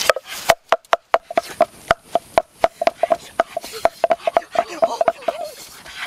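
A wooden pestle pounding in a mortar: quick, regular knocks at about four a second, each with a short ringing tone.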